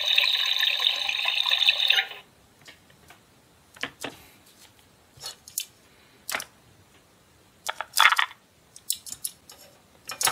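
A steady electronic sound effect from the Hello Kitty toy kitchen's small speaker, stopping abruptly about two seconds in. Then scattered light plastic clicks and taps as toy tongs, toy food and a plastic bowl are handled.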